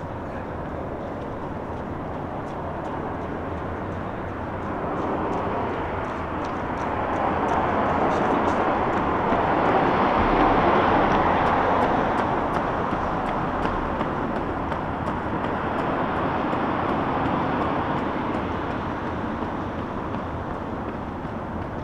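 A vehicle going by: a broad rushing noise that builds over several seconds, peaks about ten seconds in, and slowly fades away.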